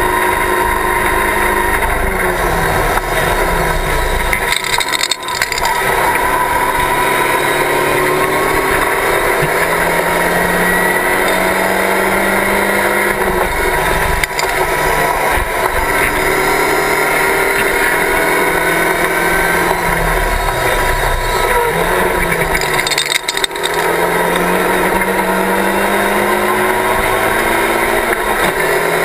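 Locost race car's engine heard from its open cockpit at racing speed. The revs climb and fall back a few times at gear changes and lifts, with a short lull about 5 seconds in and again near 23 seconds, and a steady rush of wind and road noise underneath.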